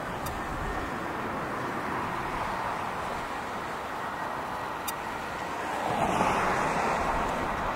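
Jet engine noise from an Airbus A320-family airliner rolling along the runway, heard from a distance as a steady rush that grows louder about six seconds in.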